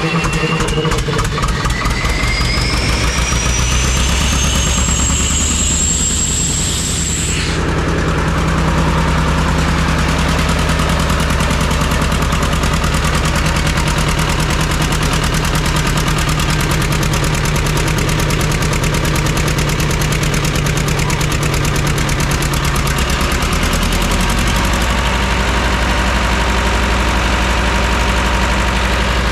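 1963 American Jenbach two-cylinder diesel engine cranked and running, with a high whine rising over the first seven seconds or so that stops abruptly, then a steady diesel run, its note shifting slightly near the end.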